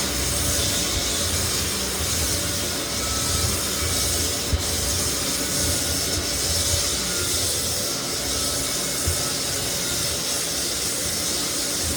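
Lagler Flip belt-drum floor sander running steadily as it grinds across white oak floorboards, levelling the cupped boards, with one short tick about four and a half seconds in.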